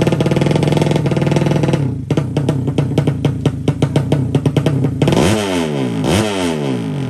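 Background music with a steady drum beat; about five seconds in, a 200 cc drag bike engine is revved twice, its pitch sweeping up and falling back each time.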